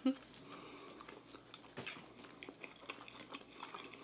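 Quiet eating at the table: chewing and scattered light clicks of forks on plates, with one sharper click about two seconds in. A brief vocal sound comes at the very start.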